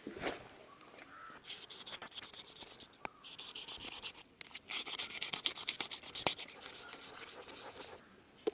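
A knife rasping against the scaly body of a large katla fish in quick, repeated scraping strokes, stronger from about halfway through. It is a thick fish and hard to cut.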